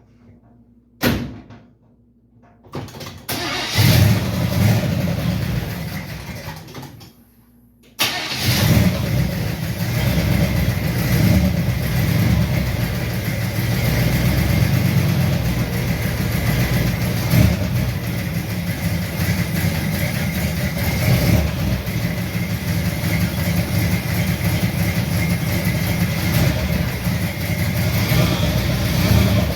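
A vehicle engine starts, then runs steadily at idle from about eight seconds in.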